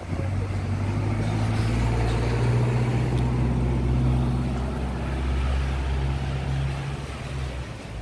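A motor vehicle's engine running close by, a low steady drone that grows louder over the first few seconds and then fades away near the end.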